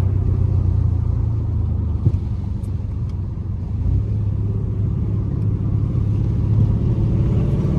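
Swapped-in 392 (6.4 L) Hemi V8 running steadily with a low, even drone, heard from inside the car. A faint short knock comes about two seconds in.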